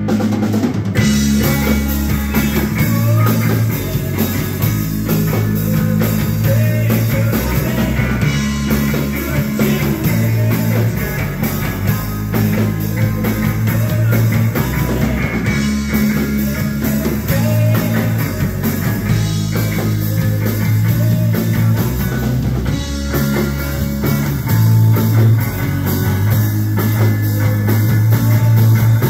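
Live rock trio playing: distorted electric guitar, bass guitar and drum kit, with a steadily shifting bass line.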